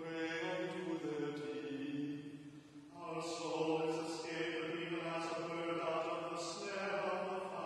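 A man's voice chanting liturgical text, the words sung on a held reciting note. The chant breaks for a breath about two and a half seconds in, then resumes and moves between a few pitches.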